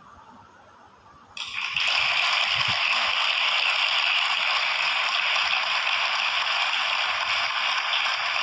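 Applause from an audience, starting suddenly about a second and a half in and then holding steady and dense.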